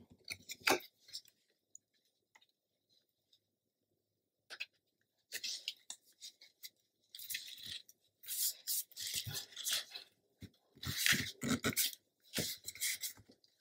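Paper handling: a patterned paper pocket liner is slid into a cardstock pocket and pressed and smoothed down by hand, giving short, irregular rustling and rubbing. The rustling starts about five seconds in.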